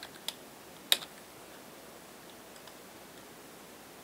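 A few sharp clicks of computer keyboard keys in the first second, the loudest about a second in, then only faint steady hiss.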